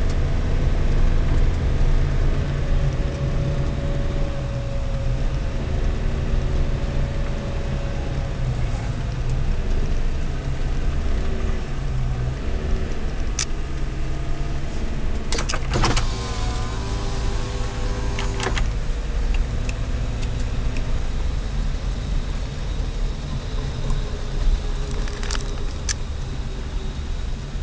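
Car driving, heard from inside the cabin: a steady low engine and road rumble. A short clatter of clicks and squeaks about halfway through, with a few single clicks elsewhere.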